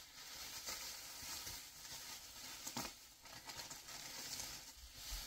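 Bubble wrap and plastic packaging rustling and crinkling as it is handled and unwrapped, with a single soft knock about three seconds in.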